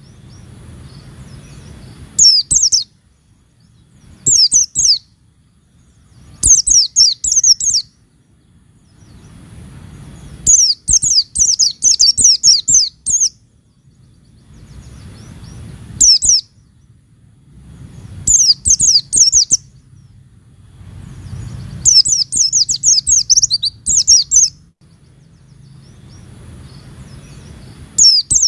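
White-eye (pleci) song: short bursts of rapid, high twittering notes repeated every few seconds, some phrases running a couple of seconds, with a faint low hum between phrases.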